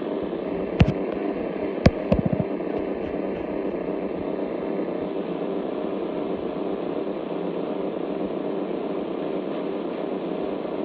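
Shortwave radio receiver tuned to 5625 kHz, putting out a steady, rough, buzzing signal over static. It is heard through the receiver's narrow audio passband. A couple of sharp clicks come about one and two seconds in, followed by a quick rattle of clicks.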